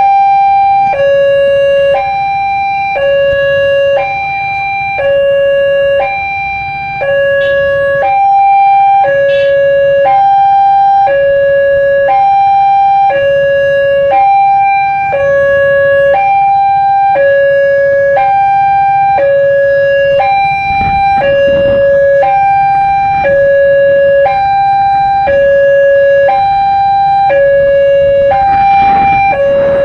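Railway level-crossing warning siren sounding a steady two-tone alarm, a high tone and a lower tone alternating about once a second.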